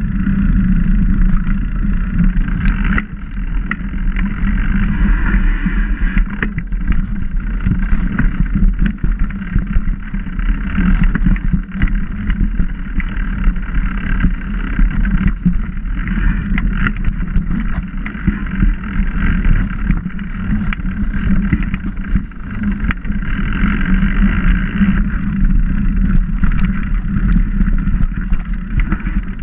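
Mountain bike rolling fast down a leaf-covered dirt trail, heard from a handlebar-mounted camera: constant wind rumble on the microphone and rattle of the bike, with many small knocks as the tyres hit bumps.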